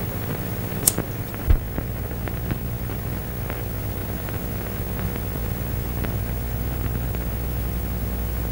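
A steady low hum with hiss, as in an old film soundtrack. A sharp click comes about a second in and a short low thump half a second later, with a few faint ticks after.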